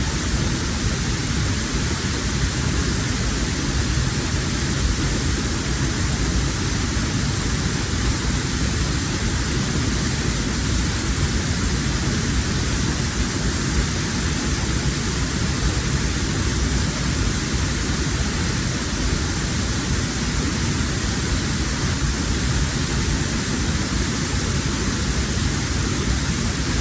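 Waterfall rushing: a loud, steady, even noise of falling water that does not change.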